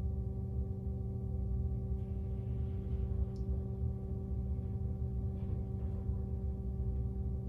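A steady low electrical hum with several faint constant tones layered in it, with faint rustling about two seconds and five seconds in.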